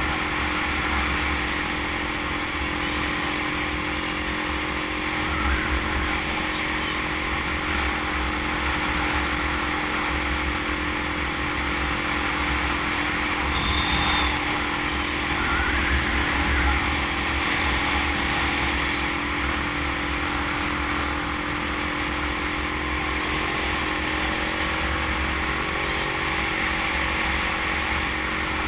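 Motorcycle engine running at a steady cruise, with loud wind rush and buffeting on the microphone. The engine note shifts slightly near the end.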